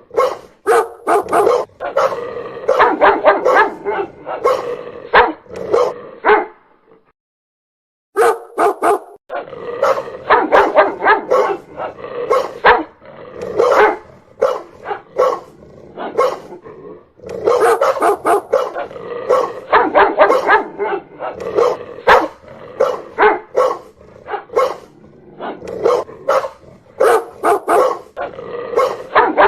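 Dog barking loudly in rapid, continuous volleys. The barking breaks off into dead silence for about a second and a half a quarter of the way in, then resumes.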